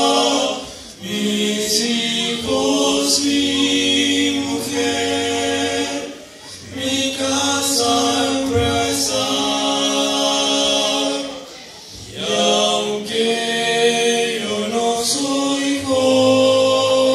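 Male vocal quartet singing a cappella in harmony, held chords in phrases of several seconds with brief breaks between.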